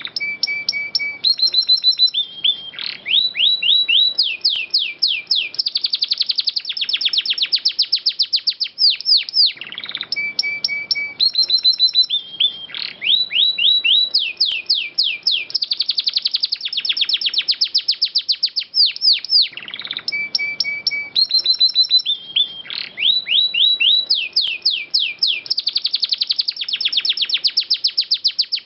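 Domestic canary singing loud, clear song made of long rolling trills and rapid series of sweeping notes, the same run of phrases recurring about every ten seconds.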